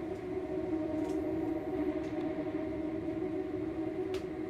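Sustained low synth drone, several tones held together as a steady chord, like a suspense underscore, with a faint click about four seconds in.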